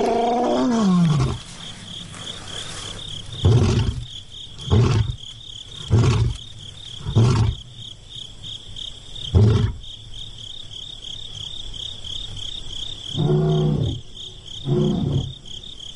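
Male lion roaring: one long moaning roar falling in pitch, then a series of short grunting roars about a second apart, and two more near the end. A steady insect trill runs underneath.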